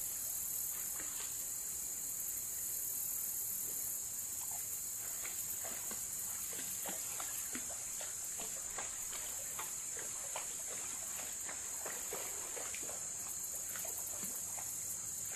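Steady high-pitched chorus of insects, with scattered small clicks and ticks through the middle of it.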